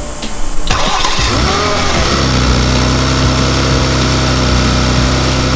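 Porsche Macan S twin-turbo V6, fitted with an open high-flow intake, starting up under the open hood: it fires about a second in, revs flare up and drop back, and it settles into a steady idle.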